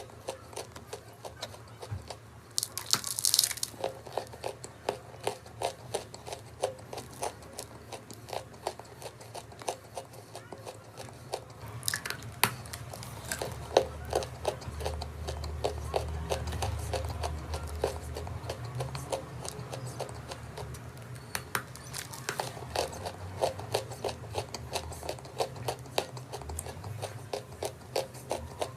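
Close-up crunching of chalk being bitten and chewed: a steady run of sharp crisp crunches, with a louder cluster about three seconds in and another about twelve seconds in.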